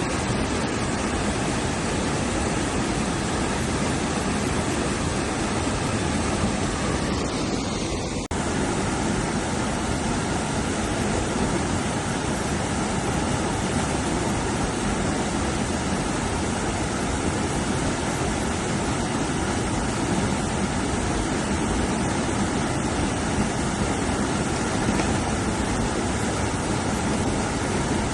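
Steady rush of fast-flowing river water over rapids, a constant even roar with a brief dip about eight seconds in.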